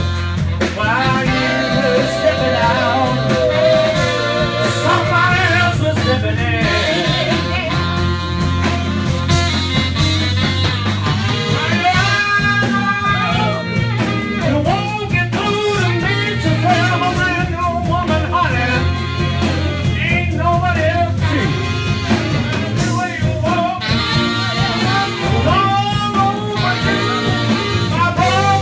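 Live blues band playing an instrumental passage: a lead instrument plays a bending, held melody over a steady bass line and drums.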